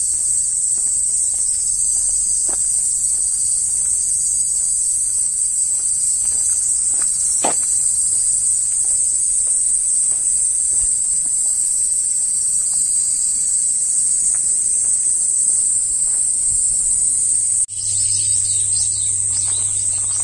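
A steady, high-pitched insect chorus: one continuous shrill drone that holds level throughout and drops out for a moment near the end. A few faint ticks sit beneath it.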